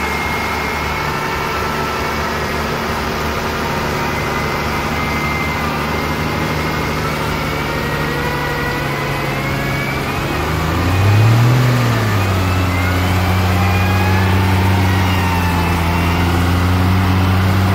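Nissan Safari's engine running while its front winch hauls the truck forward, with a thin high whine from the winch that slowly shifts in pitch. About eleven seconds in, the engine revs briefly, then settles into a louder steady run.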